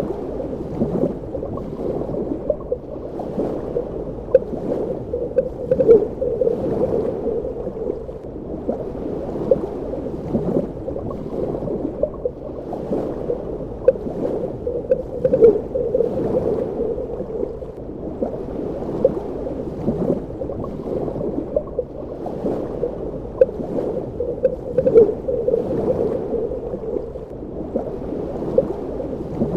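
Underwater ambience: a continuous muffled gurgling of water, with frequent irregular short pops.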